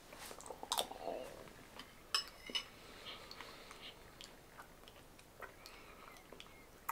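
Close-up chewing of soft, soggy breakfast food, with scattered wet mouth clicks and smacks; the loudest clicks come about a second in and again between two and three seconds.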